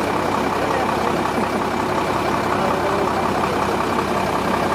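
A lorry's engine idling steadily.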